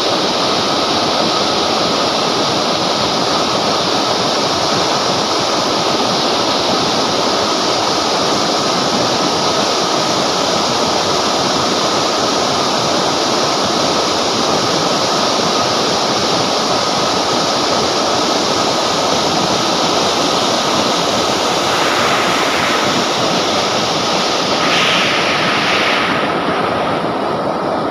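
River water rushing steadily over rocks, a dense even wash of water noise. About two seconds before the end the hissy top of the sound thins out.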